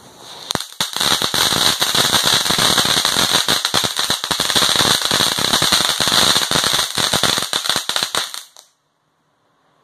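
Boomer Fireworks Sweets Fountain, a ground firework fountain, spraying sparks with a loud steady hiss and dense rapid crackling pops. It bursts into life about half a second in and cuts off suddenly about eight and a half seconds in.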